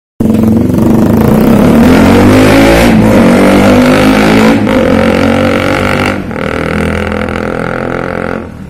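KTM RC 200 single-cylinder engine running through an aftermarket SC Project exhaust, loud, revving up with a rising pitch and pulling away. The sound breaks off abruptly a few times, and the last stretch is quieter.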